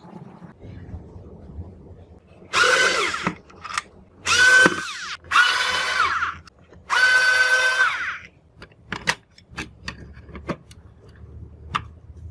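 Cordless electric screwdriver whining in four short bursts of about a second each, its pitch sliding up as it spins up and down as it stops, turning screws in a radio cassette recorder's cabinet. Near the end, a few sharp clicks of plastic parts being handled.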